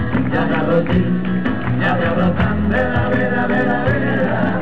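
Live band playing an upbeat rumba-style garrotín on electric and acoustic guitars, with a group singing along into microphones over a steady bass and beat.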